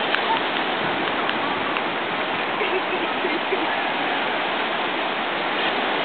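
Steady wash of ocean surf breaking along the beach, a continuous even hiss.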